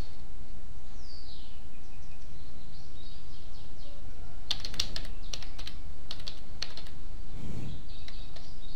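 Computer keyboard being typed on: a quick run of about a dozen keystrokes starting about halfway in, over a steady low hum.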